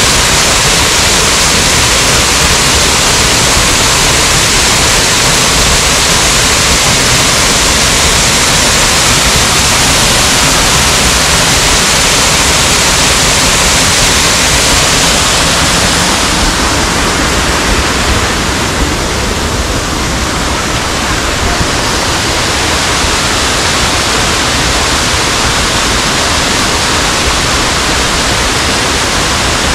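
Waterfall rushing: a loud, steady roar of falling water that eases slightly in its hiss about two-thirds of the way through.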